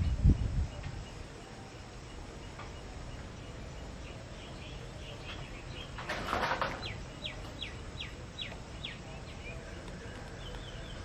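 Outdoor ambience with a bird calling: a run of about seven quick, short, descending high notes about six seconds in, with fainter chirps around it. A dull low thump sounds at the very start, and a brief rustling noise comes just before the bird's run.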